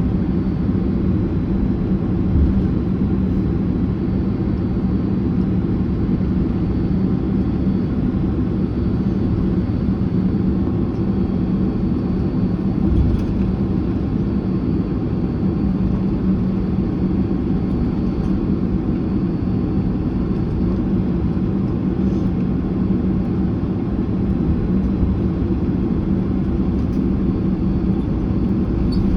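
Steady cabin noise of a Boeing 767-300ER taxiing to the gate, heard inside the cabin: a low, even rumble and hum from its engines at idle.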